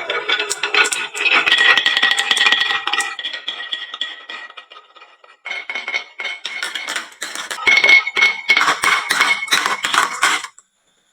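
Many marbles clattering and clicking as they roll down a wooden slope into toy trucks, with bright ringing clinks. The clatter dies away about five seconds in, starts again half a second later, and stops abruptly near the end.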